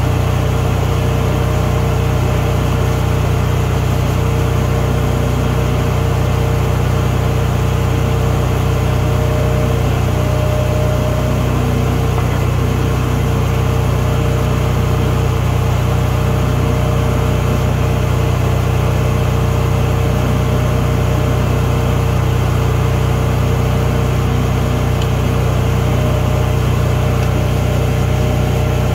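Steady, loud machine drone with a low hum and a faint even pulsing underneath; it does not change.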